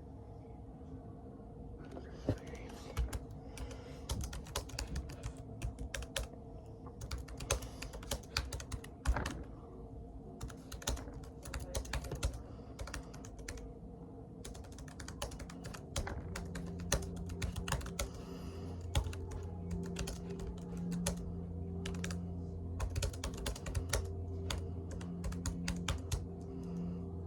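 Typing on a Chromebook keyboard: quick, irregular key clicks. A low steady hum comes in about halfway through.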